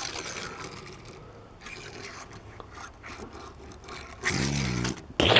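Die-cast toy car rolling and scraping by hand across a wooden surface. Near the end a short hum of a man's voice.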